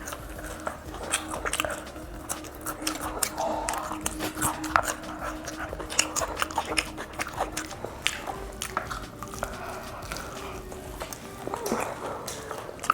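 Close-miked biting and chewing of crispy fried chicken, with many irregular sharp crunchy clicks.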